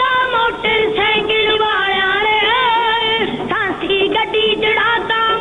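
A song: a singing voice holds a wavering, ornamented melody over musical accompaniment.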